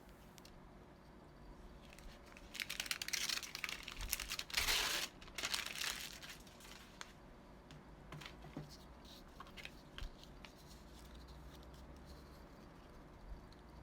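Paper crinkling and tearing for about three seconds, in a few rustling bursts, followed by a few light handling clicks.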